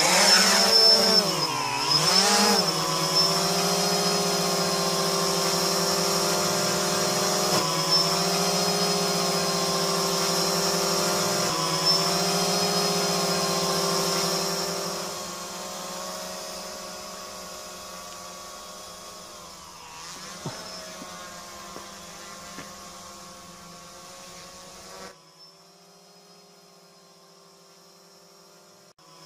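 XK Detect X380 quadcopter's brushless motors and propellers buzzing. The pitch dips and rises twice with the throttle as it lifts off, then holds a steady hum with a high whine. The hum grows fainter as the drone climbs away.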